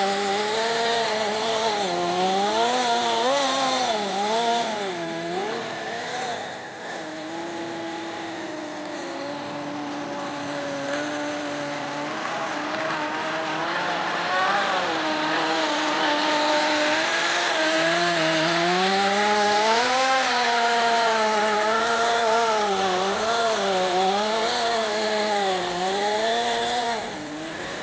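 Kyosho GX-15 nitro two-stroke glow engine of an RC model snowcat running, its pitch rising and falling constantly as the throttle is worked. It runs lower, steadier and quieter for several seconds in the middle, then revs up and down again.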